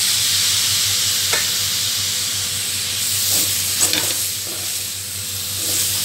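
Chopped tomatoes and green chillies sizzling loudly in hot oil in a metal pot as they are stirred in with a wooden spatula, which knocks against the pot a few times.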